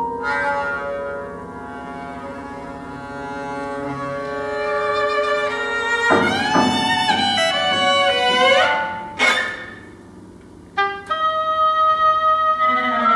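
Recorded contemporary concert music, a composer's own work being played back: held instrumental notes, then overlapping sweeping pitch glides from about halfway, a sharp accent, a brief lull and a new set of held notes near the end.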